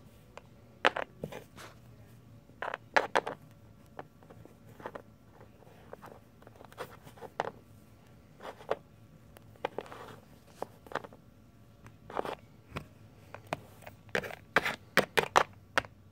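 Plastic Littlest Pet Shop figure and toy bathtub being handled: irregular small clicks, taps and scrapes, coming thick and fast near the end.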